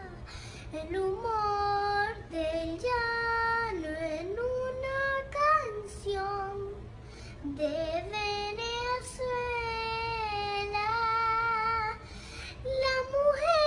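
A young girl singing alone without accompaniment, in long held notes that waver slightly, with short pauses for breath between phrases.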